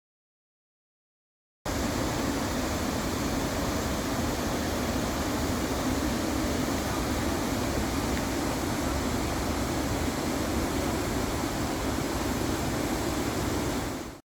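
Waterfall rushing: a steady, even wash of falling-water noise that starts suddenly after a second or two of silence and cuts off abruptly near the end.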